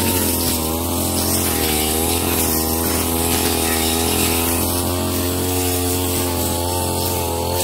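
Ogawa CC33 two-stroke brush cutter with a metal blade running at high revs while cutting overgrown growth, its engine note wavering slightly up and down.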